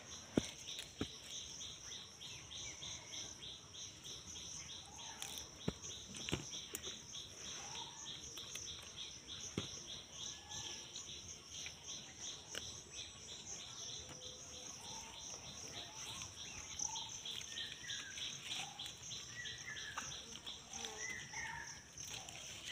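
Steady, faint chorus of insects with a regular pulsing trill, with scattered short bird chirps. A few sharp clicks and leaf rustles come from ivy gourds being plucked off the vine.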